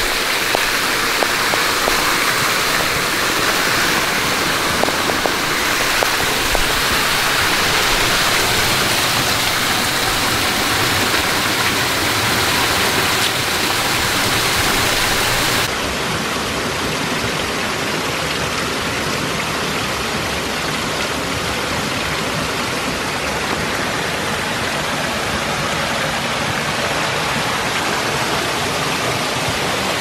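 Small waterfalls pouring off rock ledges and splashing onto rock and into a shallow pool: a steady rushing splash of falling water. About halfway through it changes abruptly to a slightly quieter, duller rush.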